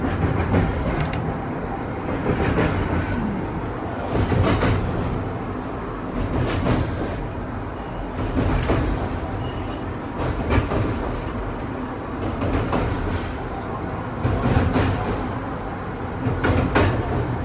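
Vintage Australian streetcar running along the rails, heard from inside its front cab: a steady low rumble of wheels and motor, with a sharp clack about every two seconds.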